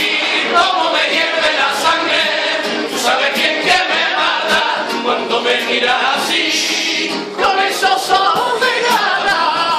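A carnival comparsa singing together in chorus, with sharp percussive hits underneath. The singing briefly drops off about seven seconds in, then starts again.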